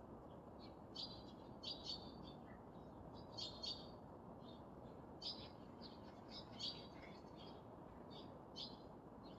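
Small birds chirping faintly: short, high chirps in irregular clusters over a steady low hiss.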